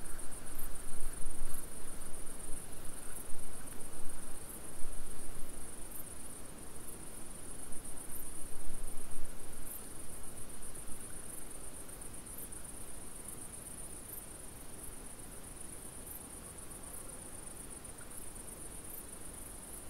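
Steady, high-pitched chirring of crickets. Irregular rustling in the first half fades out about halfway through.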